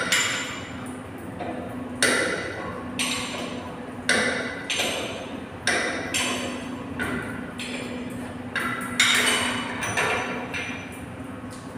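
Metal tools striking and clanking against metal pipework and a valve during a gate valve replacement: about nine sharp metallic knocks at uneven intervals of one to two seconds, each ringing briefly, stopping near the end. A steady low hum runs underneath.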